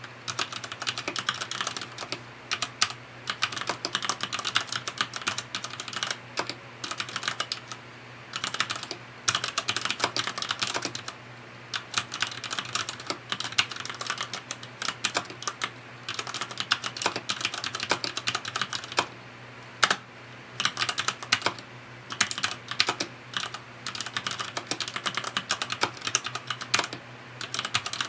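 Typing on a FILCO Majestouch 2 mechanical keyboard with Cherry MX Red linear switches: fast runs of key clicks broken by short pauses.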